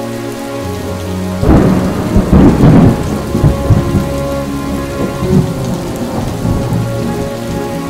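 A thunderclap about a second and a half in, rumbling and dying away over several seconds, over steady rain.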